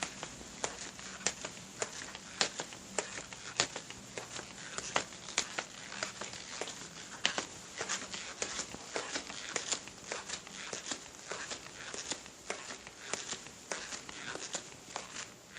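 Footsteps at a steady walking pace, a little under two steps a second, each step a sharp crunch with faint crackling between steps.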